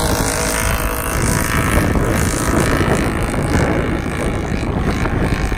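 ATV engines running hard as the quads push through deep snow, heard as a dense, rough rushing noise without a clear engine note.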